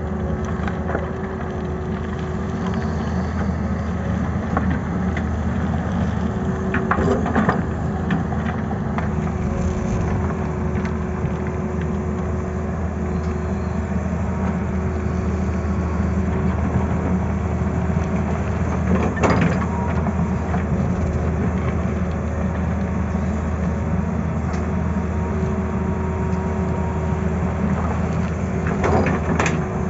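Tata Hitachi crawler excavator's diesel engine running steadily while it digs. The bucket scrapes and knocks against rock and stones, with sharper knocks about a quarter of the way in, around two-thirds through, and near the end.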